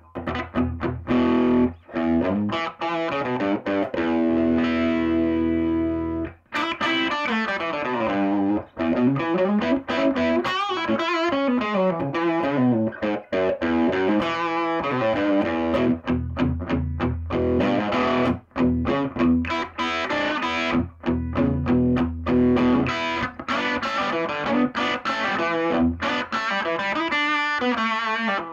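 Electric guitar played through a 1970s Univox U-1226 tube amplifier turned all the way up into an attenuator, a full-volume test of the repaired amp: chords and single-note runs, with a brief pause about six seconds in.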